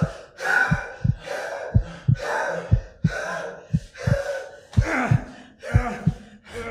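A person gasping and panting hard in quick, voiced breaths, about two a second, with a short low thud under most of them.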